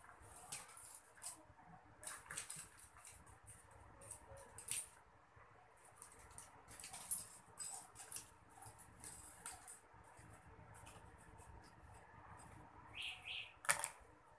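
Cloth being handled and cut: short, irregular rustles and scrapes of fabric, with a sharp click about a second before the end.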